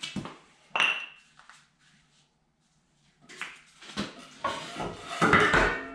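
Wooden blocks being knocked and set down on a concrete floor and against the steel frame of a disc harrow gang, wedged in to prop up the gang. There is one sharp knock with a short ring about a second in, then a pause, then a run of knocks and scrapes that is loudest near the end.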